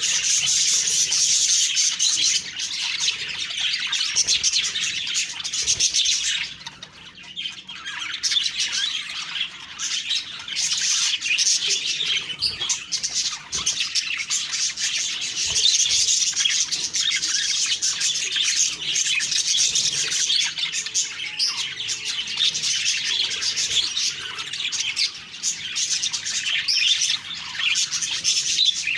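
Budgerigars chirping and warbling in a dense, continuous chatter that briefly thins out about seven seconds in.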